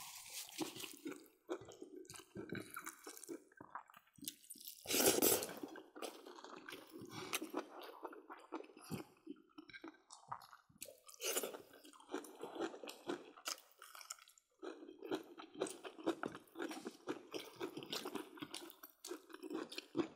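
People chewing and crunching mouthfuls of pork, mustard greens and rice, in a run of irregular small clicks and crunches, with one louder noisy burst about five seconds in.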